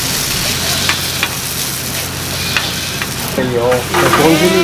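Pancake batter sizzling in hot oil on a flat griddle as it is spooned out and pressed into shape with a plastic spoon, with a few light clicks of the spoon. A voice comes in near the end.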